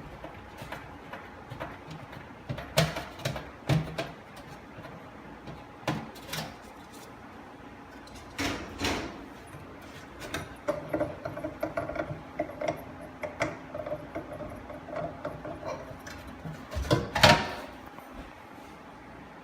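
Irregular knocks and clatters of range hood parts being handled and taken off during disassembly, the loudest clatter near the end, over a faint steady hum.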